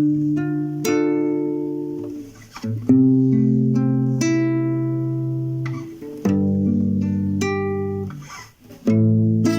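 Acoustic guitar playing an instrumental intro: chords struck and left to ring and fade, a new chord about every two to three seconds.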